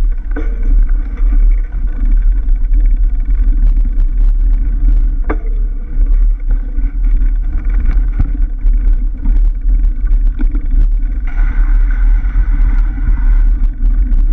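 Mountain bike ridden along a dirt forest singletrack, heard through the rider's onboard camera: a loud, steady low rumble of wind buffeting and tyre noise, with scattered clicks and rattles from the bike over the rough trail. A brighter hiss joins about eleven seconds in.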